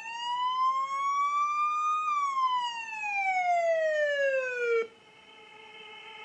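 Siren sound effect in a hip-hop dance music track: one wail that rises for about two seconds, then falls and cuts off sharply near five seconds in. A quieter steady synth note follows and slowly swells.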